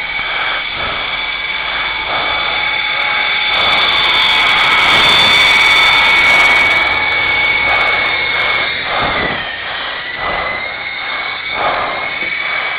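Syma S033G RC helicopter's electric motors and newly replaced small gears whining steadily in flight. The whine dips in pitch about nine seconds in, then climbs back.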